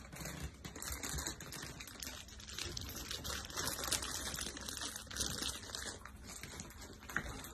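Continuous rustling made up of many small crackles.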